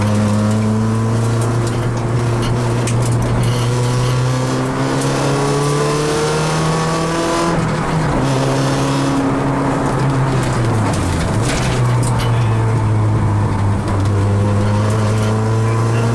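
Rally car's engine heard from inside the cabin, driven hard on a special stage. Its pitch climbs steadily through the revs, breaks about eight seconds in, and dips sharply and recovers around eleven seconds as the driver lifts and changes gear. After that it runs on steadily under load.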